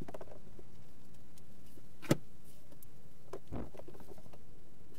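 Quiet steady background with a few light knocks and thuds and one short sharp click about two seconds in: a person walking on the floorboards and handling a large sheet of board as it is carried past.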